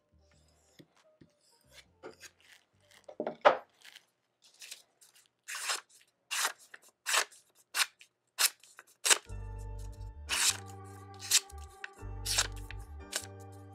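Knife blade slicing through a sheet of paper in a sharpness test: a series of short, crisp cuts, one after another. Background music with a bass line comes in loudly about nine seconds in.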